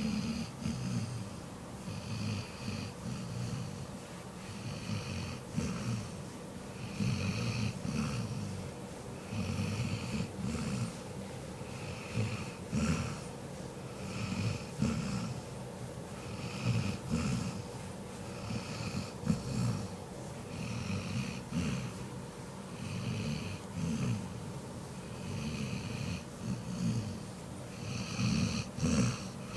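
Snoring: a steady rhythm of snoring breaths, each an in-and-out pair, about every two seconds.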